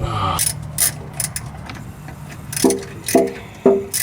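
Ratchet wrench clicking in short, uneven strokes as a starter mounting bolt is run in, with three short squeaks about half a second apart near the end.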